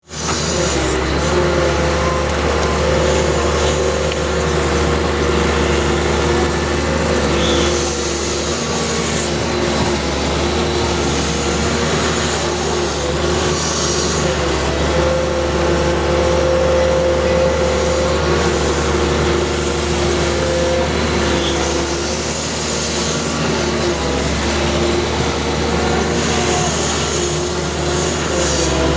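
Heavy diesel engine of an excavator running steadily at work, its tone shifting slightly now and then.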